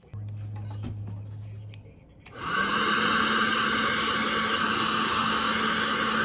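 A low steady hum for about two seconds. Then a handheld hot-air blower starts and runs steadily with a loud, even rush of air and a steady motor hum.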